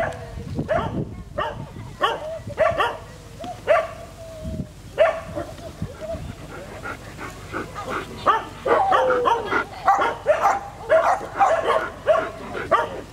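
Dogs barking in short repeated barks, the barks coming faster and overlapping from about eight seconds in.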